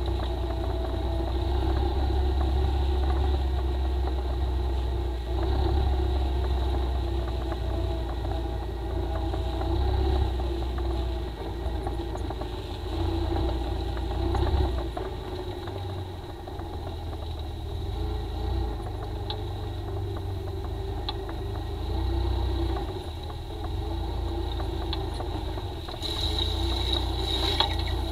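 Suzuki Ozark ATV's single-cylinder four-stroke engine running as the quad is ridden over a muddy track, its level rising and falling with the throttle. Near the end a brief rush of noise comes as mud splashes over the front of the quad and the camera.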